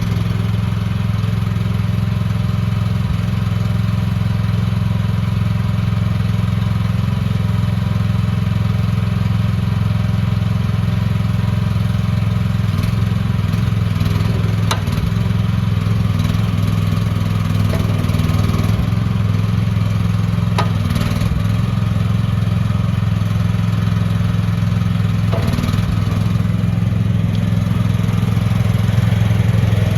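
Small gasoline engine of an AGT H15 mini excavator running steadily just after starting, getting slightly louder near the end.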